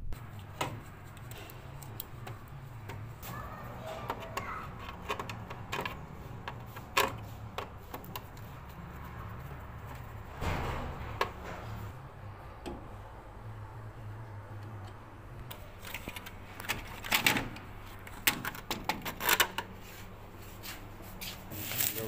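Scattered clicks and knocks of plastic parts and a screwdriver being worked on a washing machine's plastic control-panel housing, over a steady low hum. A quick cluster of clicks comes about three-quarters of the way through.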